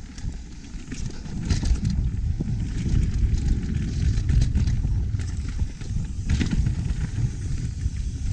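Mountain bike rolling fast down a dirt singletrack: a steady rumble of tyres on dirt and roots, mixed with wind buffeting the microphone. Sharp rattles and clacks from the bike over bumps, clustered about a second and a half in and again near six seconds.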